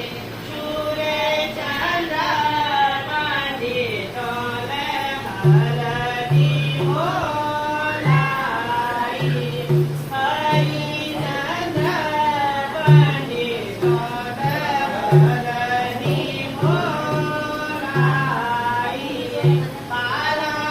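High-pitched melodic singing with a low hand drum beating along from about five seconds in.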